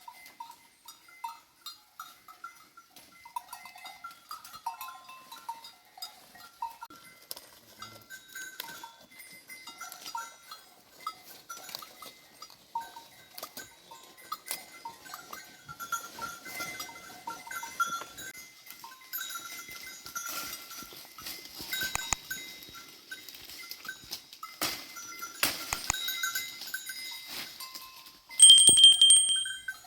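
Bells on a flock of sheep clinking and jingling irregularly as the animals move, with a rustling background. Near the end comes one loud, steady, high-pitched call lasting about a second.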